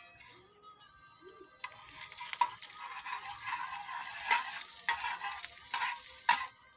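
Beaten egg frying in a pan of hot cooking oil: a sizzle with dense crackling that sets in about a second and a half in, with occasional louder pops.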